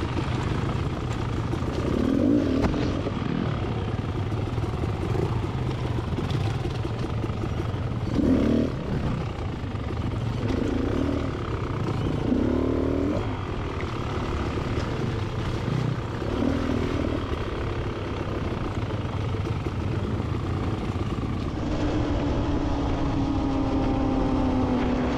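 Beta XTrainer 300 two-stroke dirt bike engine running on the trail at low revs, picking up briefly several times, then held at a steady pitch near the end.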